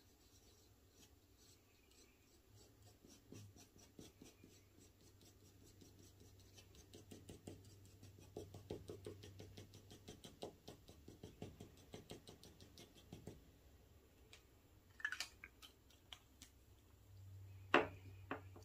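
Fountain pen nib scratching faintly across paper in quick short strokes, a few a second, followed by a couple of louder clicks near the end.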